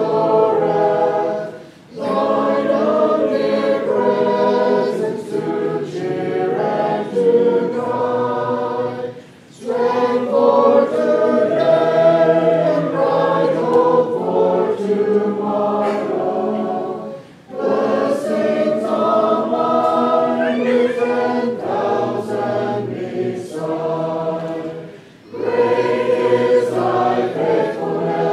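Congregation singing a hymn together without instruments, in long sustained phrases broken by short pauses for breath about every eight seconds.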